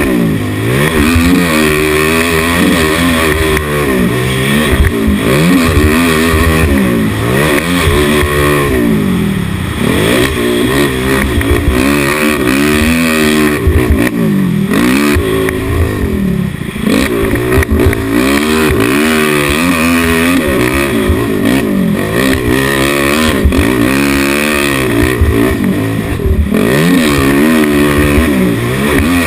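Engine of a dirt-track race machine heard onboard at full race pace, its revs climbing and dropping again and again every couple of seconds as the throttle is worked around the track.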